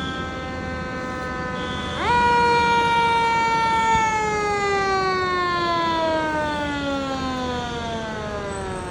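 Fire engine siren wailing: a steady pitched tone that jumps up about two seconds in, then slowly winds down in pitch.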